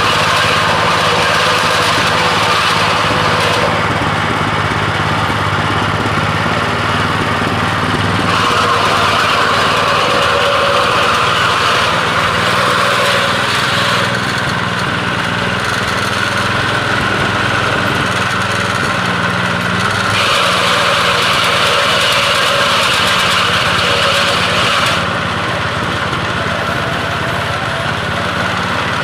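Peanut picking machine running with a steady motor drone and a higher rushing noise that grows and eases in spells every few seconds.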